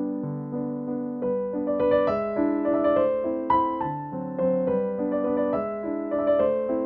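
Background piano music: a soft, gentle melody of single notes over sustained chords.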